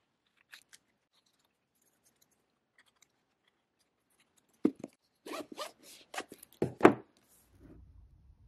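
A small hard-shell travel jewellery case being handled: a couple of faint ticks, then about halfway in a quick run of sharp clicks, rustles and knocks, ending in a louder thump.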